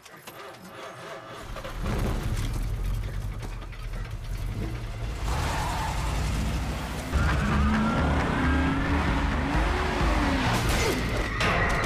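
A car engine revving with tyre squeals over a heavy low rumble that builds up over the first two seconds, with rising and falling pitch glides near the end.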